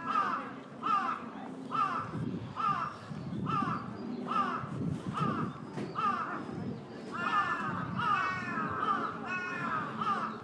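An animal calling over and over, about two calls a second, each call short and falling in pitch; the calls grow more intense and crowded about seven seconds in.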